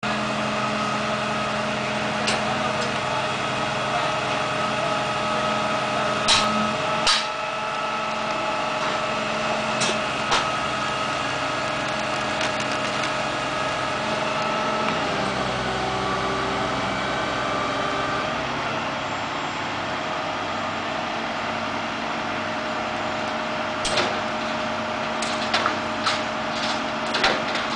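Rollback tow truck running steadily while its tilted bed lets a car down, a humming drone that shifts pitch a few times. A handful of sharp metallic clanks and clicks come through it, clustered near the end.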